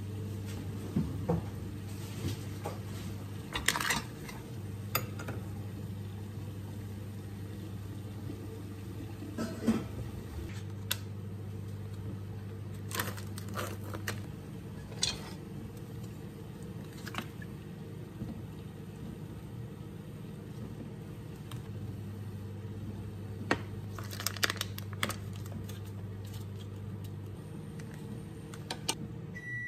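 Microwave oven running with a steady low hum whose deepest part drops out for a few seconds at a time, then stops near the end. Scattered kitchen clatter and crinkling of plastic food packaging lie over it.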